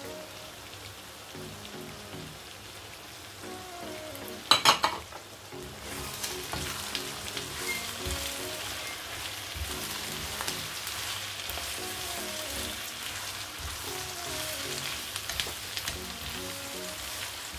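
Diced courgette and onion sizzling in a frying pan while a silicone spatula stirs and scrapes them; the sizzle grows louder from about six seconds in. A quick run of sharp knocks about four and a half seconds in is the loudest sound, with soft background music underneath.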